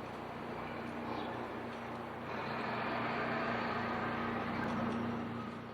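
Steady vehicle noise with a constant low hum, growing a little louder about two seconds in and dying away near the end.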